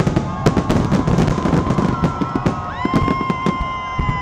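Fireworks shells bursting in quick succession, with repeated bangs and crackling. A high steady held tone runs underneath, and a second, higher one joins near the end.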